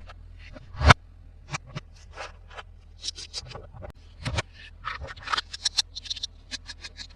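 Hands handling plastic toys and their packaging: a run of small clicks, taps and scratches, with a sharp knock about a second in and a second one about four seconds in.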